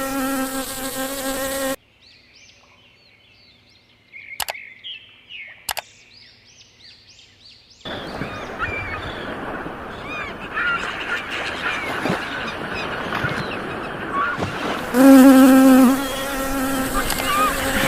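Bee buzzing close by, a steady hum with a rich overtone series, which cuts off suddenly about two seconds in. A quiet stretch of short high chirps and two sharp clicks follows, then a hissing background with more chirps. Near the end the loud, close buzz of a bee starts again.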